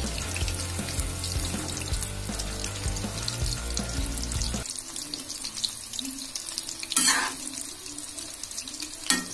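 Hot oil sizzling and crackling as battered chicken pieces deep-fry in a steel kadhai, stirred and turned with a metal slotted spatula. Two sharp knocks of the spatula against the pan, about two-thirds of the way through and near the end.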